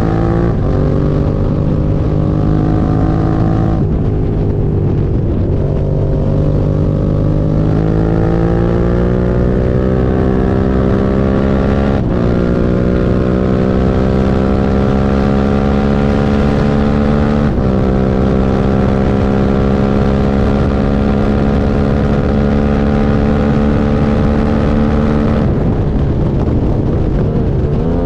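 Suzuki SV650's V-twin engine running under way, its pitch climbing slowly and breaking off briefly four times where the note steps to a new pitch, as at gear changes. The bike is the one its owner filmed for a misfire.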